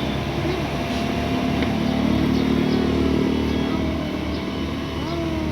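Excavator's diesel engine running steadily, swelling louder for about a second and a half around two seconds in as it takes load.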